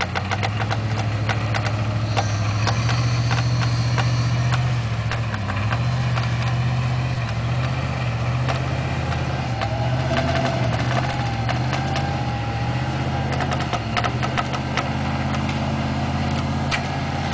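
Jeep Grand Cherokee's engine running steadily at low revs while the SUV is pulled forward through deep mud on a taut winch line, with scattered clicks and cracks. A faint whine comes in for a few seconds past the middle.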